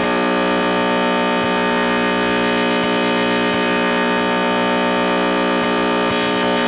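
Black-MIDI 'noise' piece rendered with a Steinway concert-grand piano soundfont: a dense mass of notes sounding at once, merging into one steady, loud held chord.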